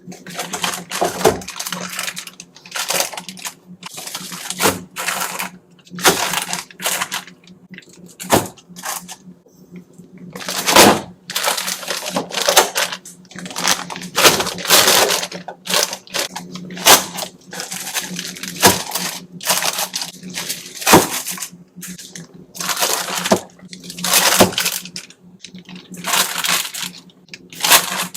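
Jars, bottles and food containers clinking and clattering as they are handled and set down, with irregular knocks and rustling between them. A faint steady hum runs underneath.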